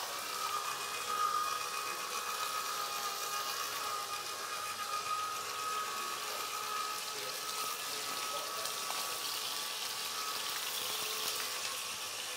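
Meat searing in a hot pan, its rendered fat sizzling steadily, with a faint steady whine over it that is strongest in the first few seconds.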